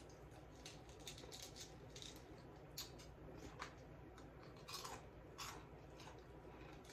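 Faint, scattered crackling of crispy Church's fried chicken breading as the pieces are pulled apart by hand and eaten.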